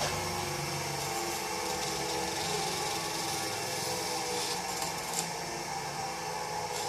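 Bench grinder running steadily with its grinding wheel spinning, with brief contacts of fingernails against the wheel a little past the middle.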